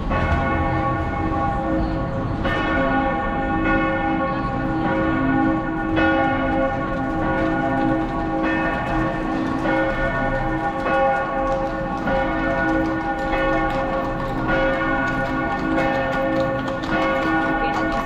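Michaelerkirche's tower bells pealing: several bells at different pitches, a fresh stroke about once a second, each ringing on over the next.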